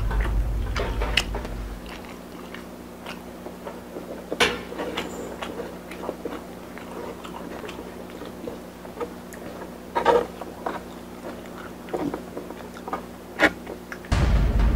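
Wooden chopsticks poking and spearing crisp, chili-flake-coated fried dumplings on a wooden cutting board: scattered sharp taps and crackly crunches over a faint hum. A deep low sound fades out early in the first seconds and sets in again suddenly near the end.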